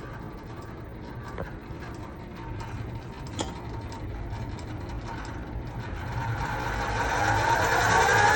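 HiTorque 7500 bench lathe running with a low hum and light mechanical ticking, its whine rising in pitch and growing louder over the last couple of seconds as the variable-speed spindle is turned up.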